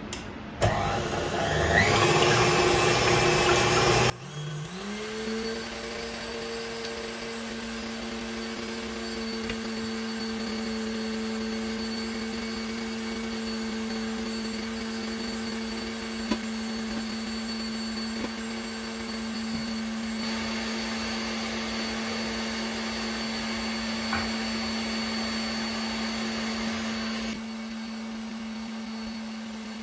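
Electric stand mixer running, whisking egg whites. A louder, rougher sound for the first four seconds changes to a steady motor hum that settles in pitch and holds.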